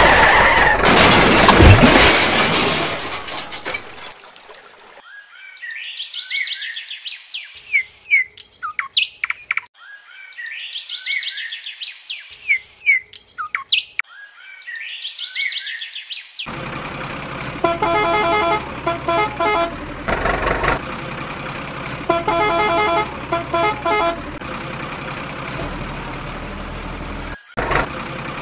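A loud burst of noise with a falling tone in the first few seconds, then birds chirping in a repeating loop for about ten seconds, then a vehicle horn honking in two runs of quick repeated toots over a steady background hum.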